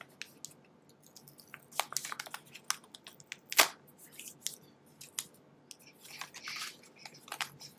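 A sealed trading-card pack being opened by hand: irregular crackling and clicks of the wrapping being torn and pulled, with one sharp crack about three and a half seconds in.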